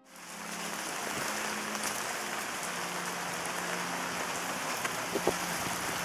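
Steady rain falling, an even hiss, with a few sharper taps of drops about five seconds in.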